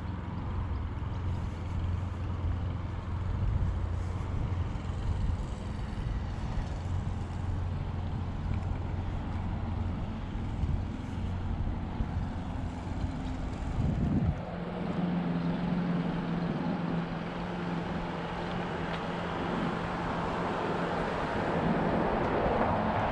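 A motor running steadily with a low hum, its pitch stepping up about fourteen seconds in.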